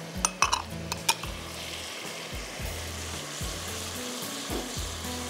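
Tomato and cream sauce sizzling in a nonstick pan over a gas flame while a silicone spatula stirs it, with a few sharp knocks against the pan in the first second.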